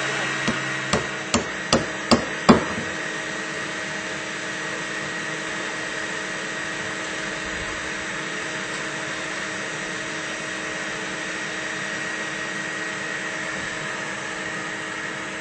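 A hammer nailing on the roof: about six sharp blows in quick succession in the first two and a half seconds, then a steady hiss with a faint hum.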